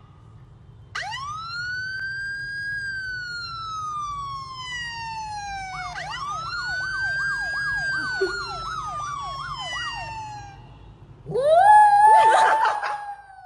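Police-style siren sound: a wail rises about a second in and falls slowly, then rises again into a fast yelp of about three sweeps a second. Near the end a small white dog howls along, louder than the siren.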